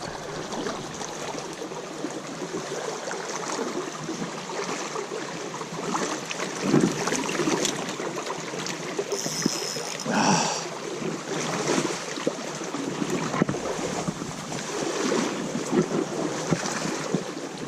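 Small creek running steadily, with a few brief louder noises from handling around 7 and 10 seconds in.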